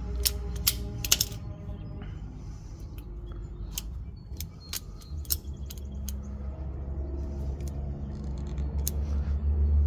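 Locking pliers (vice grips) crimping a crimp-on terminal onto 4-gauge battery cable: scattered sharp metallic clicks and taps at irregular intervals. A low steady hum comes in about halfway and grows louder near the end.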